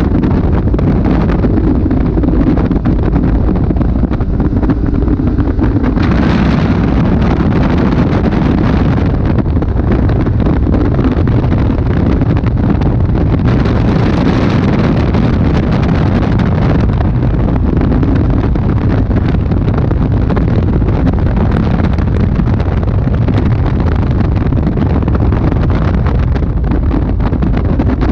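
Caterham Seven sports car under way at speed, its engine running beneath heavy wind buffeting on the microphone in the open cockpit. Twice the noise grows brighter for a few seconds.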